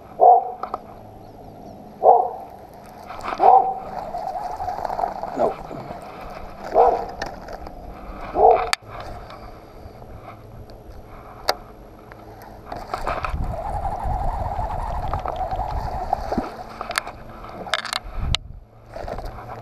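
A dog barking, about six single barks a second or two apart, followed near the end by a few seconds of rushing, rumbling noise.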